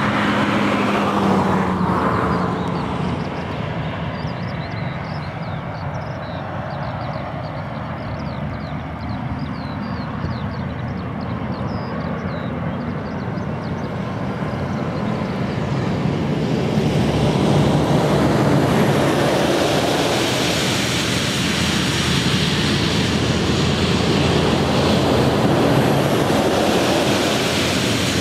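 Cessna Citation Mustang's twin Pratt & Whitney PW615F turbofans at takeoff power: a steady jet roar as the aircraft leaves the runway and climbs away. The roar eases a few seconds in and swells again over the second half.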